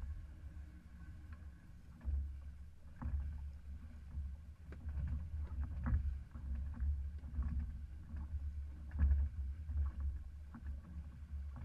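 Westsail 32 sailboat under way, heard from inside its cabin: a low rumble from the hull moving through the sea, with scattered knocks and clicks.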